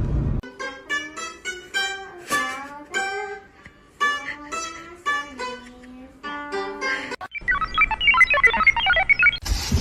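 Background music: a plucked-string melody of short, separate notes. About seven seconds in it changes to a quick run of high tinkling notes, and near the end it is cut off by a sudden burst of noise.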